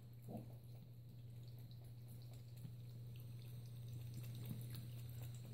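Faint trickle of a thin stream of tap water from a bathroom faucet into the sink, with small wet ticks of a cat lapping at the stream, over a steady low hum.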